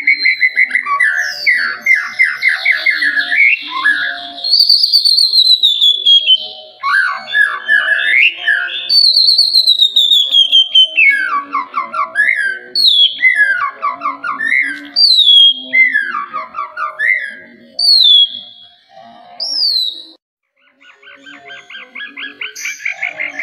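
White-rumped shama singing: loud whistled phrases mixed with fast runs of repeated notes, with a falling whistle repeated several times through the middle. A brief pause near the end, then a fast trill of repeated notes.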